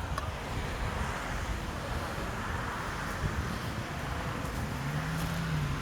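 Wind buffeting the microphone over a steady low outdoor rumble, with a brief low hum about five seconds in.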